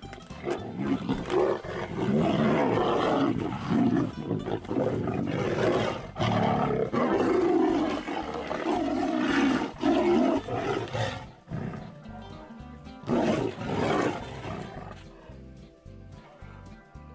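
Two tigers fighting, roaring loudly again and again over background music; the roars break off about 11 seconds in, with one more burst around 13 seconds.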